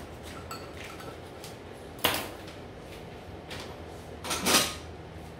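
Kitchen handling noises: a sharp knock about two seconds in, then a louder, brief clatter about four and a half seconds in.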